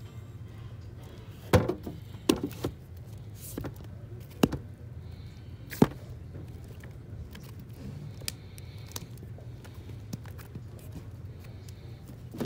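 Vinyl LP records being flipped through in a record bin: a handful of sharp clacks as the sleeves fall against the stack in the first six seconds, then lighter ticks of handling over a steady low hum.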